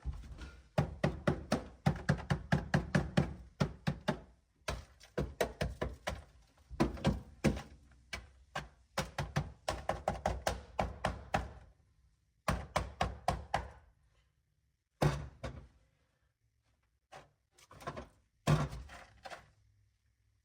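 Asphalt sound deadener on a car's steel floor pan cracking and ticking as dry ice freezes it brittle: rapid runs of sharp clicks that come in bursts and pauses, thinning out after about twelve seconds.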